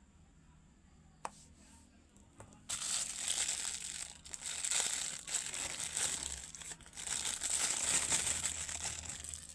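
Packaging being crinkled and torn open during an unboxing, with a sharp click about a second in and then continuous rustling crinkles from nearly three seconds in.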